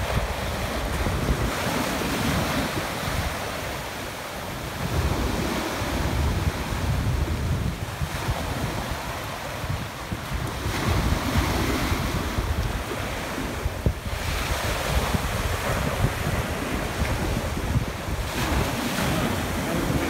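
Small waves breaking and washing up a beach, swelling and easing every few seconds, with wind buffeting the microphone.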